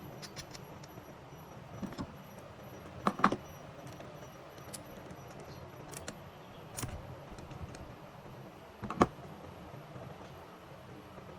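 Scattered clicks and light knocks of parts and tools being handled while a steam iron is reassembled. The two loudest come about three seconds in and about nine seconds in, over steady background noise.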